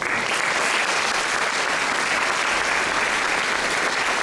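Audience applauding in a hall, steady dense clapping that breaks out all at once at the end of a speech.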